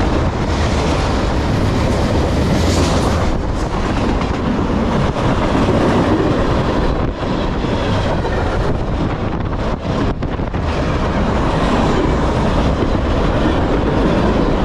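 Freight train cars rolling past at track speed close by: a loud, steady rumble and clatter of steel wheels on the rails.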